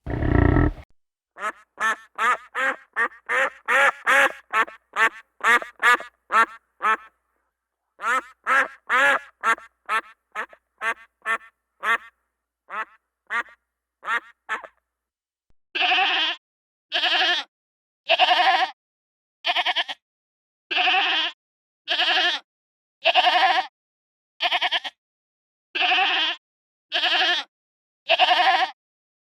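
Duck quacking: fast runs of quacks, several a second, then louder quacks spaced evenly about once a second. A short low grunt is heard right at the start.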